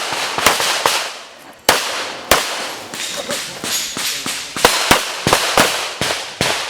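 Handgun shots fired in a rapid, uneven string: about a dozen sharp cracks, some in quick pairs, with a short pause in the middle.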